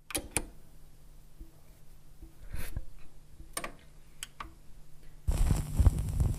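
Vinyl record surface noise on a turntable: scattered clicks and pops over a low steady hum. About five seconds in, music starts loudly.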